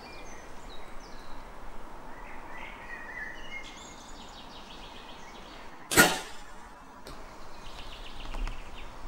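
Compound bow shot: a single sharp snap of the string and limbs as the arrow is released, about six seconds in.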